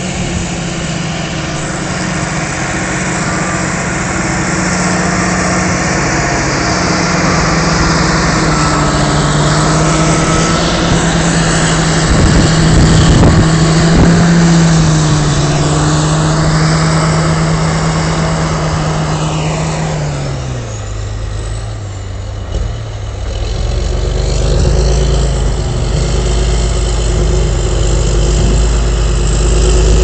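John Deere tractor's diesel engine running steadily under load while pulling a five-furrow reversible plough through the soil. About two-thirds of the way through, the engine note drops sharply as the tractor eases off, and a deeper, lower rumble carries on to the end.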